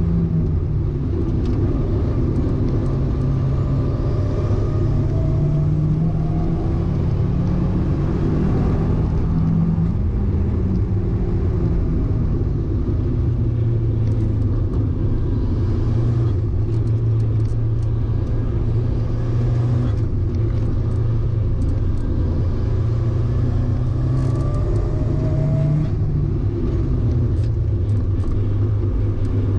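A car's engine heard from inside the cabin while it is driven on a race track, held at high revs and changing speed through the lap. The engine note is higher in the first third, drops to a lower, steady pitch through the middle, and climbs again near the end, over a constant rumble.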